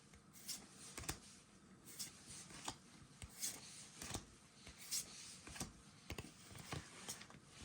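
Pokémon trading cards being handled and flipped through by hand: soft, irregular card snaps and slides, about one or two a second.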